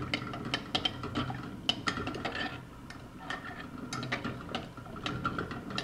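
Metal spoon stirring liquid in a glass bowl, clinking and scraping against the glass in quick, irregular taps.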